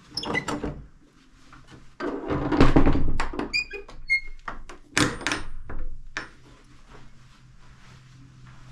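A door being worked: a series of clunks and thuds, the heaviest about two seconds in, with a brief metallic ringing just after and another knock about five seconds in.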